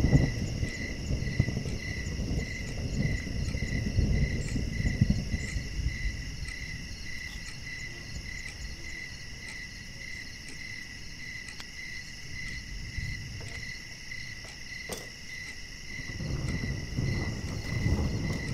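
Crickets chirping in a steady, even rhythm, with a low rumble at the start and again near the end.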